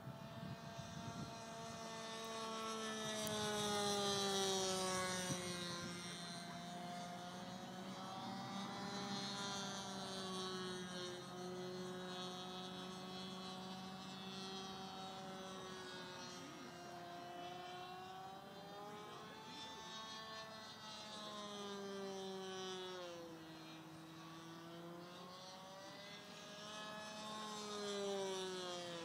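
Great Planes Revolver RC model airplane's motor and propeller running in flight overhead, its pitch sliding down and up repeatedly as the plane passes and turns. It is loudest about four seconds in and again near the end.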